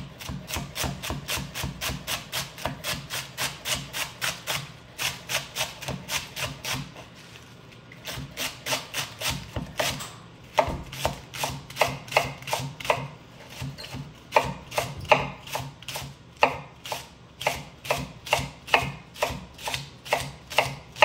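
Kitchen knife chopping vegetables on a cutting board in a steady rhythm of about three strokes a second, pausing briefly once and then resuming with sharper, louder strokes.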